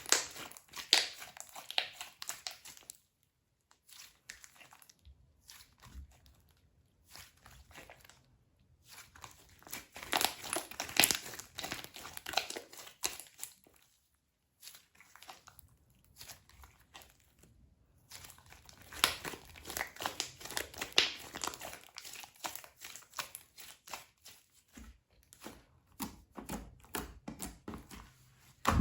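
Toffee slime being pressed, stretched and poked by hand, making sticky crackling and clicking sounds in dense clusters. The clusters are broken by a few sudden cuts to silence.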